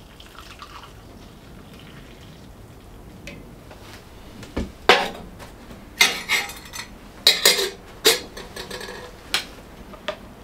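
Metal cookware and utensils clinking and clanking, a string of sharp knocks with short ringing starting about halfway through.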